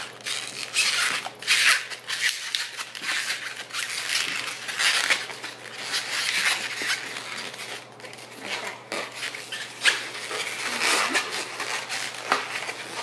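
Latex modelling balloons being twisted and handled, rubbing against each other and the fingers in short, irregular scrapes.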